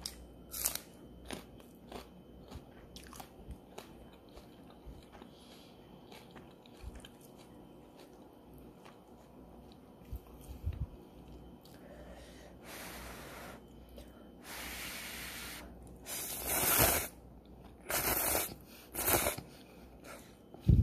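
Close-up eating sounds: short crunches and chewing, then ramen noodles slurped in a few long pulls and three loud bursts near the end.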